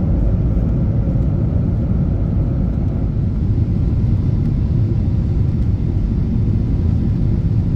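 Steady low rumble of engine and airflow noise inside the cabin of a Boeing 777-200ER on approach, with flaps extended, heard from a seat over the wing.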